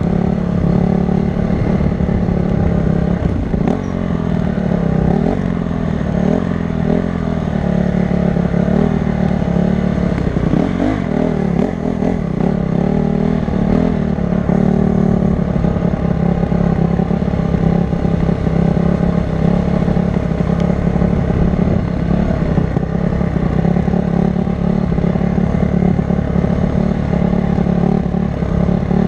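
Honda CRF250 dirt bike engine running while being ridden, its pitch rising and falling with the throttle for several seconds early in the ride, then holding steadier.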